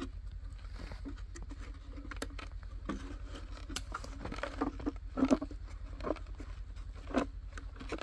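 Handling and setting a marten box trap in snow: scattered knocks, clicks and scrapes of the box and its chain, with the loudest knocks about five and seven seconds in, over a steady low rumble.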